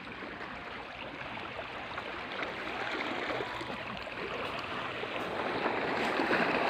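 Sea water washing and splashing, a steady rush that grows louder toward the end.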